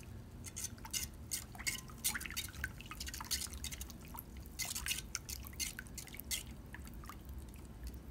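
Wire balloon whisk beating a runny egg mixture in a ceramic bowl: rapid, irregular wet splashing clicks that thin out near the end.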